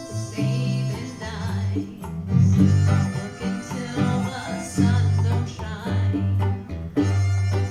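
Live band music led by guitar, with a run of low bass notes and plucked-string playing and no words sung.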